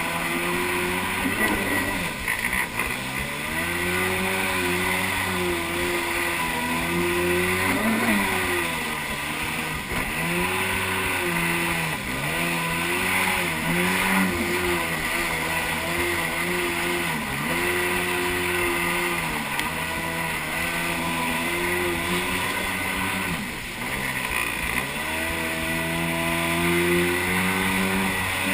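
1991 Kawasaki JS440 stand-up jet ski's two-stroke twin engine running under way. Its pitch repeatedly dips and climbs back as the throttle is eased off and opened again, over a steady hiss.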